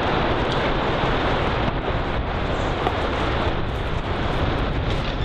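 Wind buffeting an outdoor microphone: a steady low noise with no distinct events.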